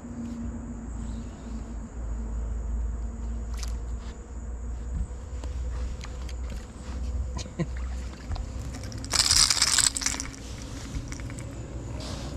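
A bass striking a topwater bait: a loud splash about nine seconds in, lasting about a second, over a steady low rumble.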